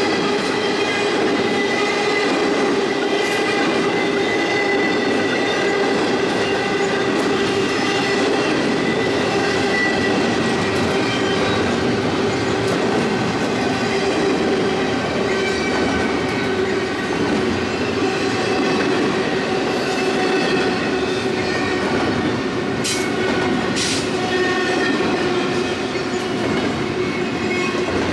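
Double-stack intermodal freight train rolling past, its steel wheels on the rails making a steady rumble with a constant high whine. Two sharp clicks come close together near the end.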